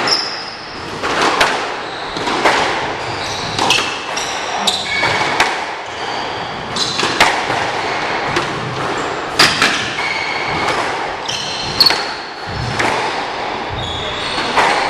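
Squash rally: the ball smacking off rackets and the court walls about once a second, with sneakers squeaking in short high chirps on the hardwood court floor.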